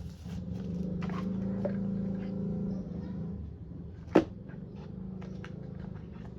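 Handling noises: scattered light clicks and taps with one sharp click about four seconds in, over a low steady hum.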